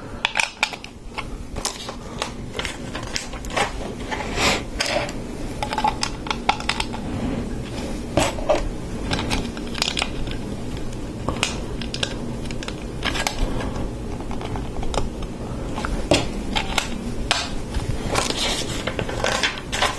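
Plastic LEGO bricks clicking and clattering: irregular small clicks as pieces are handled and pressed together.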